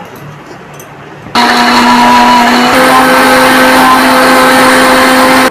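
Electric mixer grinder running, grinding onion, tomato, garlic and ginger with a little water into a masala paste: a loud, steady whirring hum that starts about a second and a half in, rises slightly in pitch a little later, and cuts off suddenly near the end.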